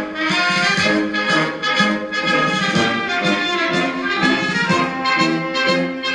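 Instrumental music led by brass instruments, playing a melody in held notes.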